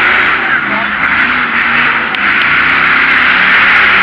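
Off-road race truck's engine running loud as it drives across the dirt arena, its pitch shifting up and down, over a dense steady din.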